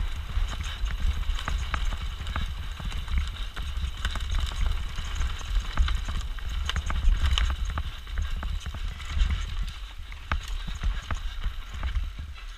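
Mountain bike descending a rough trail, heard from a GoPro on the bike or rider: a steady rumble of wind and ground with rapid, irregular clattering and knocking as the bike rattles over rocks.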